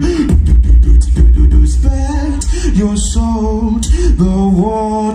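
Solo beatboxing: a sung melody line stepping between held notes over a deep, continuous vocal bass, with sharp percussive clicks on top, all made by one voice into a microphone.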